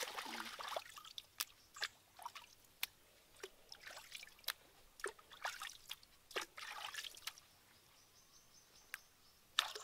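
Hands splashing in shallow stream water for about a second, then scattered drips and small splashes, with another brief bout of splashing in the middle.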